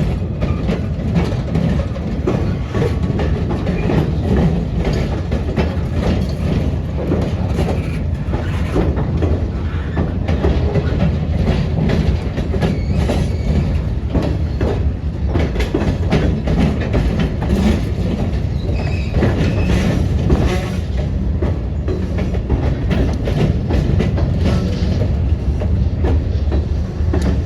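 HO-scale model diesel train running with DCC sound: a steady diesel engine rumble from the locomotives' speakers, with many small irregular clicks of wheels over the track.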